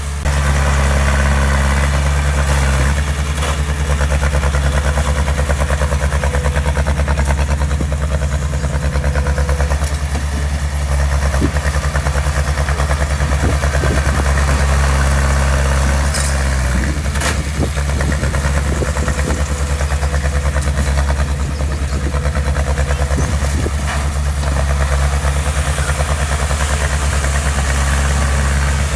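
Heavy diesel engine of construction equipment running steadily near idle, with a fast even chug. A few brief knocks come through about a third and again about halfway through.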